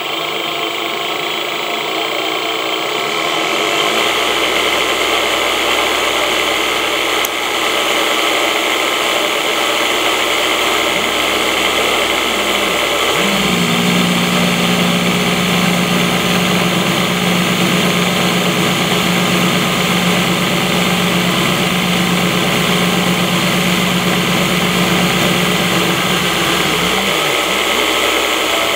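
Belt-driven spindle of a CNC-converted benchtop milling machine running at speed, with its end mill cutting aluminium: a steady, loud machining noise. About halfway through a strong, steady low tone comes in with the cut, and it drops away shortly before the end.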